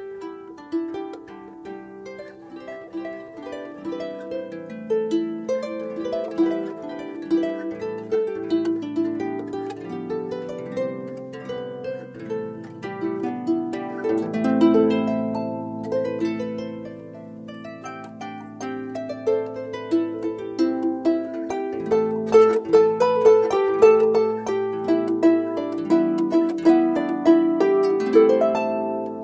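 Background music: a melody of quick plucked string notes, harp-like.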